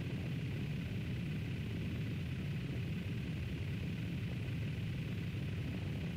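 Steady low rumble of a PiperSport light aircraft's Rotax engine throttled back, with rushing airflow, as the plane floats just above the runway in the landing flare.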